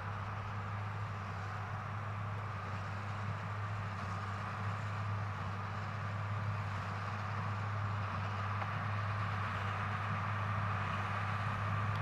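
Ford 8830 tractor's diesel engine running steadily under load while pulling a New Holland BB940 large square baler through a hay windrow, a constant low drone that slowly grows louder as the rig approaches.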